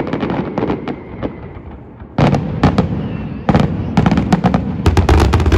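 Fireworks display: dense crackling at first that eases off, then from about two seconds in a rapid run of loud bangs, growing heavier and deeper toward the end.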